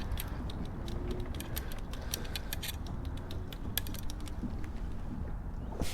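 Fishing gear being handled: irregular light clicks and rattles, over a low steady rumble.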